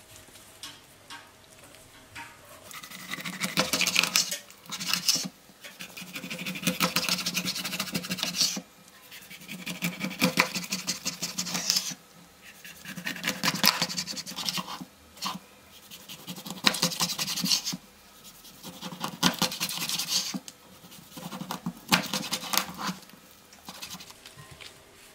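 Kitchen knife sawing crosswise through a whole raw rainbow trout on a wooden cutting board, about eight cuts, each a second or two of crunching and scraping through scales and bone.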